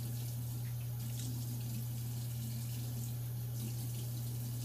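Tap running water into a sink, an even hiss, over a steady low hum.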